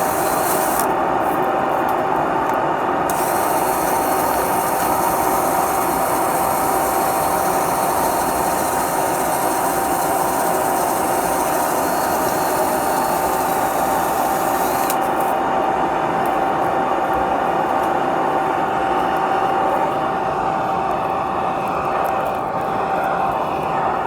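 A machine running steadily with a mechanical rattle and a constant whine. The high hiss cuts in and out abruptly about a second in, at about three seconds and at about fifteen seconds.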